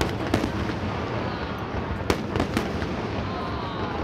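Aerial fireworks bursting over a continuous crackle and low rumble. Sharp bangs sound at the start and again in a quick cluster about two seconds in.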